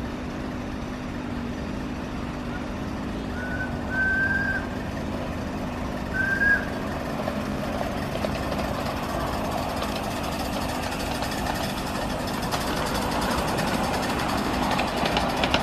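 5-inch gauge GWR 14XX live-steam locomotive running towards the listener: two short whistle toots a couple of seconds apart, then its running sound, steam exhaust and wheels on the track, grows louder with a rapid ticking as it comes close.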